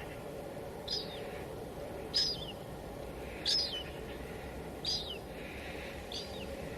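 A bird's short, high call repeated five times at even intervals about a second and a quarter apart, each note dropping in pitch at its end. Under it runs a steady low hiss of background noise.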